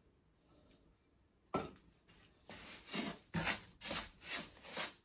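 Wooden spoon scraping and stirring sugar into roasted semolina in a frying pan, rubbing strokes about two a second from about halfway in. Before them comes a single sharp knock about a second and a half in.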